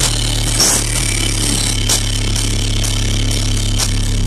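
A car audio system playing music very loud, carried by a heavy sustained bass note, with sharp ticks and rattles scattered over the top.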